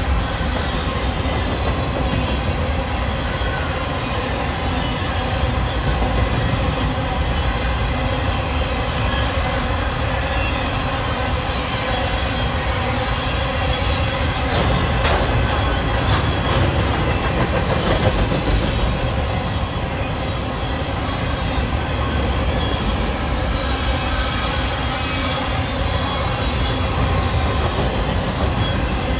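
Freight train of covered hopper cars rolling past at speed: a steady, unbroken rumble of steel wheels on the rails, heaviest in the low end.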